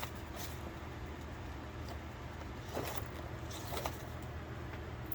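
Folded paper slips rustling and crinkling in a few short bursts as they are handled, over a steady low hum.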